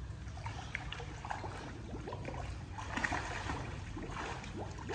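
Pool water lapping, with small irregular splashes, as a person swims slowly through it.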